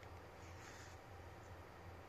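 Near silence: faint room tone with a weak low hum.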